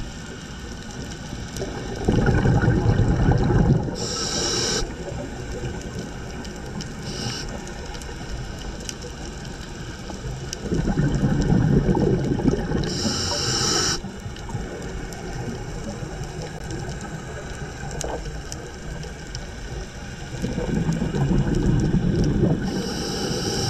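A scuba diver breathing through a regulator underwater: three gurgling surges of exhaled bubbles about nine seconds apart, each ending in a short higher hiss, over a steady background hiss.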